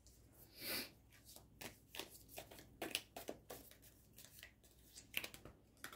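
Playing cards being handled and shuffled: soft, irregular clicks and rustles, with a gentle swish just under a second in.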